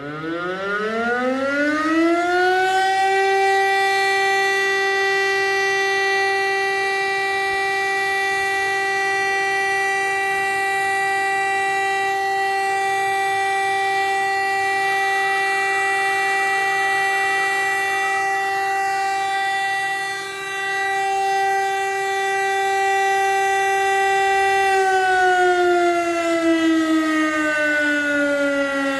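VEM DS977 motor siren sounding the Czech fire-brigade alarm: it winds up over about two seconds, holds one steady tone for about twenty seconds, and begins winding down near the end.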